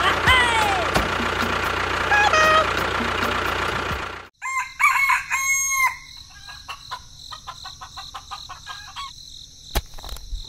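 Chicken sounds, a rooster crowing and hens clucking, laid over a steady mechanical rumble that cuts off suddenly about four seconds in. After that come a few more clucks and a run of light ticks.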